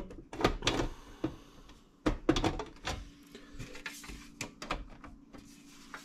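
Metal side cover of a Dell 7010 desktop case being worked onto the chassis: clusters of rattling clicks and knocks about half a second in and again about two seconds in, then lighter scattered ticks.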